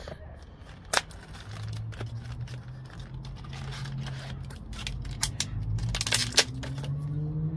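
Clicks, taps and snaps of small makeup packaging being handled and opened, a lip liner and lip gloss duo. The sharpest snaps come about a second in and just after six seconds, over a low steady hum.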